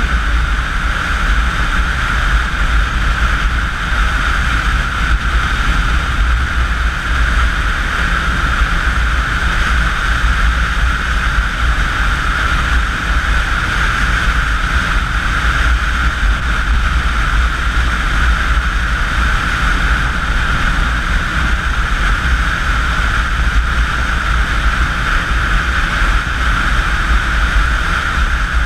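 Motorcycle cruising at highway speed, heard from on the bike: a steady rush of wind on the microphone over engine and road noise, with no change in pace.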